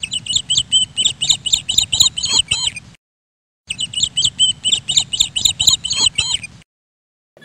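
Rapid bird chirping, about four to five quick chirps a second, in two near-identical runs of about three seconds each, cut apart by a moment of dead silence, as from a repeated sound-effect clip.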